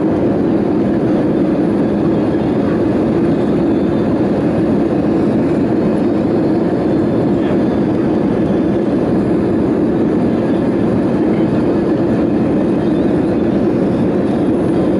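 Steady cabin noise of an Airbus A320 in the climb after take-off: the jet engines and rushing airflow heard from inside the passenger cabin, a deep even drone.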